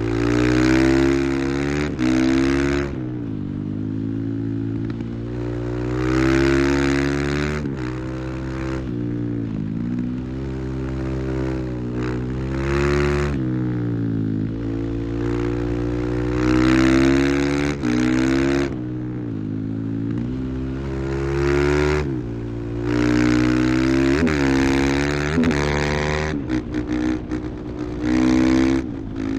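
Husqvarna FE 501's single-cylinder four-stroke engine ridden hard, with repeated loud throttle surges every few seconds: the revs climb, then fall back as the throttle is eased, as when the bike is lifted into and held in wheelies. Near the end the throttle is blipped on and off in short choppy bursts.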